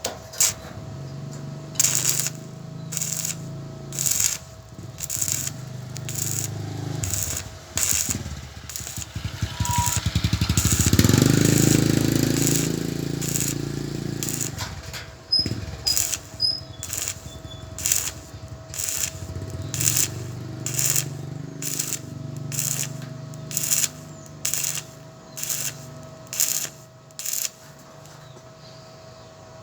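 Arc welding on angle iron in short repeated bursts, about one a second, over a steady low electrical buzz, with a longer and louder stretch of continuous noise midway.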